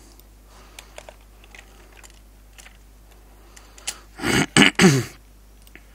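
A few faint computer keyboard and mouse clicks, then about four seconds in a short, loud, wordless vocal noise from a man in three quick bursts, the last one falling in pitch.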